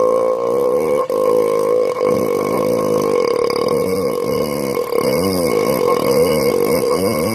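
A person burping on command: a long, drawn-out belch with a wavering, gurgling pitch, broken only briefly about a second in.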